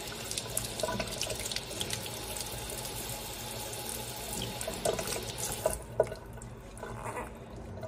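Kitchen sink faucet running, the water splashing over a newborn puppy being bathed; the running water stops about six seconds in.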